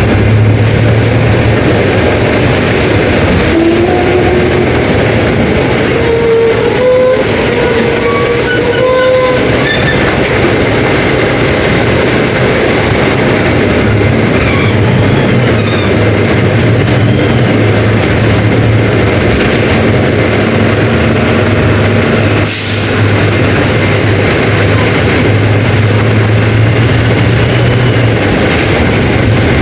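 Mercedes-Benz OF 1721 BlueTec 5 bus running: a steady low diesel engine drone that swells and eases, under loud rattling noise. A short rising tone comes through between about four and nine seconds in.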